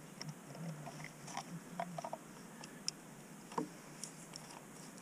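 Faint scattered clicks and rustles of gear being handled close to the microphone.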